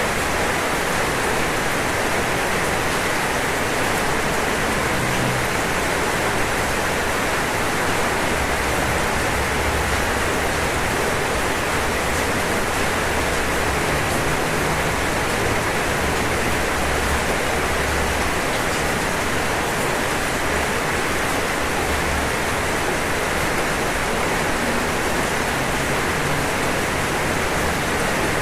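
Steady rain falling on a roof, a dense, even hiss with no breaks.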